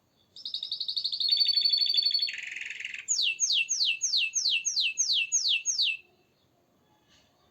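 Canary singing: a phrase of fast trills that shifts pitch twice, then a run of about ten quick falling notes, stopping about six seconds in.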